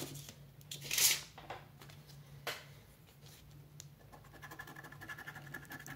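A coin scratching the coating off a paper scratch-off lottery ticket: a strong scrape about a second in, another partway through, then quick, rapid scraping strokes in the second half.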